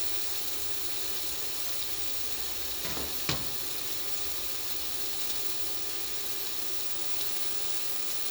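Thin-sliced chicken sizzling steadily in hot oil in a wok while it browns undisturbed, with one sharp click about three seconds in.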